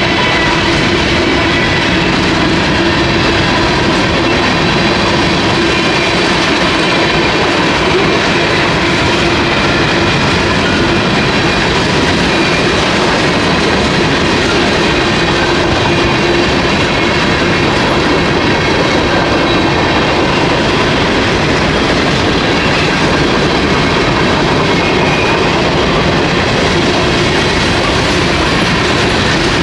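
Freight cars of CSX train M693 rolling steadily past at speed, steel wheels running on the rails with a continuous loud rumble. A few faint steady high tones sit above the noise.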